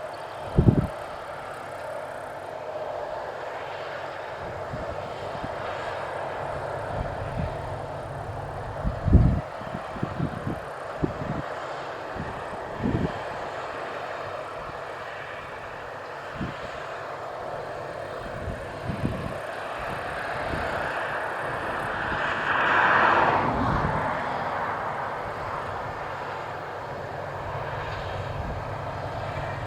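Claas Lexion 760 Terra Trac combine harvester running steadily while harvesting grain. Its drone swells louder about 22 seconds in, and a few short low thumps come through, the loudest about 9 seconds in.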